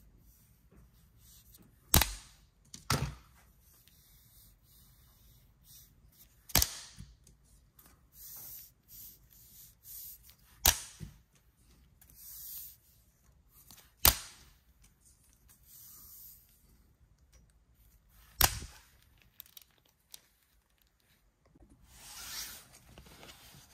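Slap bracelets being unrolled and snapped: six sharp snaps of the spring-steel bands flipping straight or curling round the wrist, with soft rustling of the bands being handled between them.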